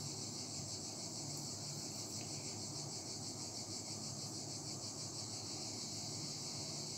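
Steady high-pitched background trill; the yarn and hook make no clear sound of their own.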